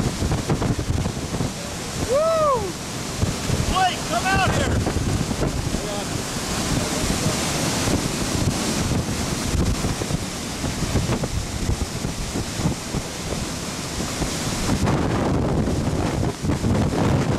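Hurricane eyewall wind blasting the microphone along with heavy wind-driven rain: a loud, steady rush of noise. Short rising-and-falling tones come about two and four seconds in.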